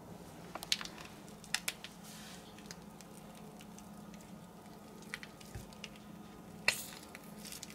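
Faint squishing and crinkling of a plastic zip-top bag being squeezed to pipe deviled-egg filling into egg-white halves, with a few short scattered clicks over a low steady hum.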